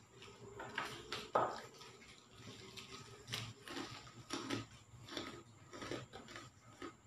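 Boiled balut eggs being cracked and peeled by hand: an irregular run of small crackling clicks and wet sounds, the loudest about a second and a half in.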